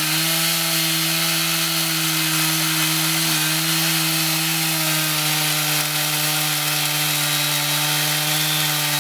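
Water-cooled ICS diamond chainsaw running steadily at wide-open throttle as it plunge-cuts into limestone, its pitch holding constant under even pressure.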